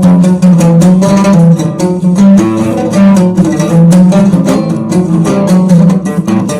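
Instrumental music with a steady beat, an instrumental break in the song with no singing.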